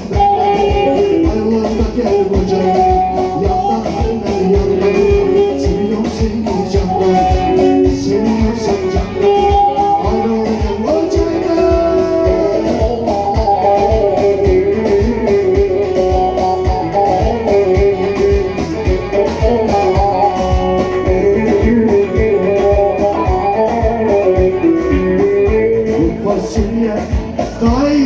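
Live Turkish folk band played loud through a PA: a bağlama (long-necked saz) carrying the melody over keyboard and a steady darbuka beat.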